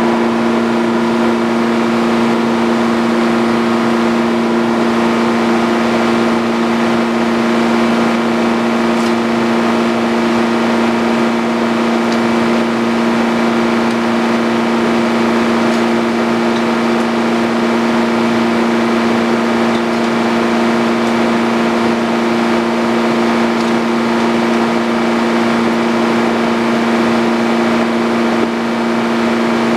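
Frick OO circular sawmill running steadily: a loud, even machine drone with a pair of steady humming tones that hold their pitch throughout.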